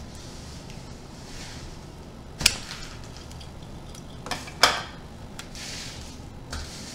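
Flip-flop soles pressing and grinding crushed Goldfish cracker crumbs against a hard floor: a soft gritty crunching, broken by a sharp snap about two and a half seconds in and two more close together a couple of seconds later.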